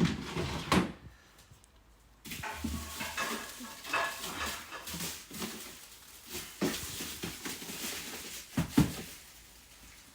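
Handling noise from unpacking items and putting them into a storage cabinet: rustling with scattered light knocks and clicks. A few sharp knocks come at the start, then it goes quiet for about two seconds before the rustling resumes.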